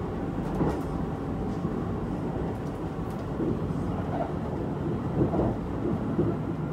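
Cabin noise of a Kintetsu 22000 series (ACE) limited express electric train on the move: a steady low rumble of wheels on rail and running gear, rising and falling slightly in level.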